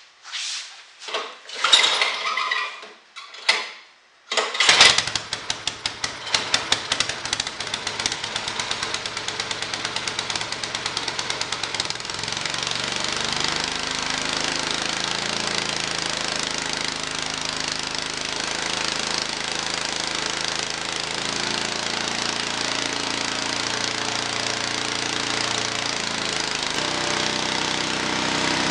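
5 HP Tecumseh single-cylinder four-stroke snowblower engine being cranked in several short bursts, catching about five seconds in. It runs with distinct, uneven firing beats for several seconds, then settles into a steady run.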